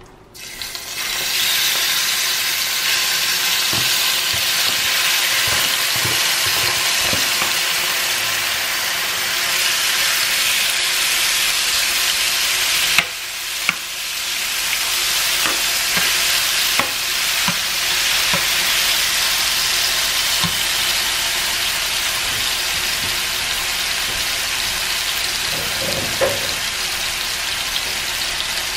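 Marinated chicken sizzling in a hot frying pan, the hiss starting about a second in as the chicken goes in and then holding steady. A metal spoon knocks now and then against the pan as the pieces are turned.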